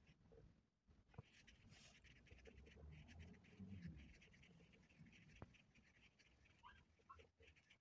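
Faint rustling and scratching of a crochet hook pulling wool-acrylic yarn through stitches, with small ticks throughout.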